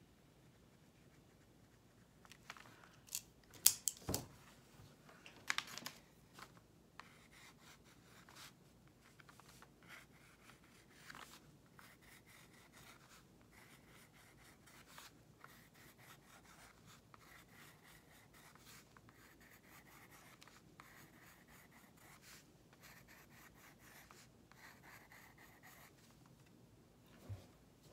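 Graphite pencil scratching faintly on textured watercolour paper in short, quick sketching strokes. A few sharp clicks and knocks come about three to six seconds in, and one soft knock comes near the end.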